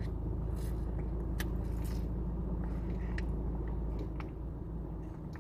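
Steady low rumble of an idling car heard inside its cabin, easing slightly near the end, with a few faint clicks while a juice pouch is sipped through a straw.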